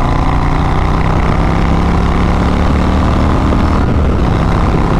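Harley-Davidson Low Rider S's Milwaukee-Eight 114 V-twin running hard as the motorcycle accelerates toward triple-digit speed. The loud exhaust is mixed with a heavy rush of wind.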